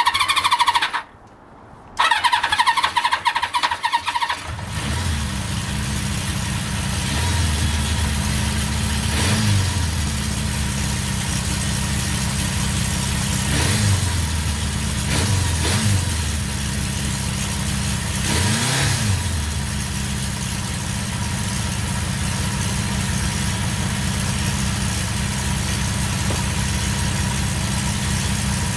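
A 1976 Honda CB400 Four's air-cooled inline-four is started for the first time on its freshly overhauled carburettors. The starter whines in two bursts with a short pause between them, then the engine catches about four seconds in. It settles into a steady run with a few quick throttle blips that rise and fall in pitch.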